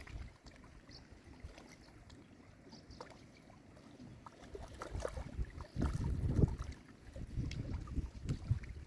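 Outdoor low rumbling noise that swells and fades, loudest about six seconds in, with scattered light clicks.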